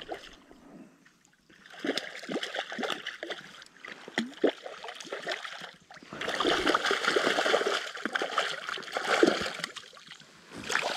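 Water splashing and sloshing in two long stretches, with a short break about six seconds in.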